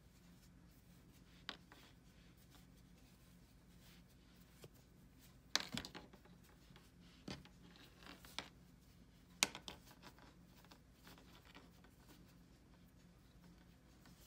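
Faint handling sounds of fleece strips being pulled and knotted by hand: soft rubbing with a few brief sharp taps, the loudest about five and a half and nine and a half seconds in, over a low steady hum.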